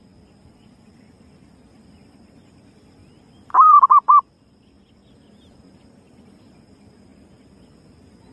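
Zebra dove (perkutut) cooing once, about three and a half seconds in: a short phrase of a rising note followed by three quick notes. It is a lure call of the kind used to draw wild zebra doves to a trap.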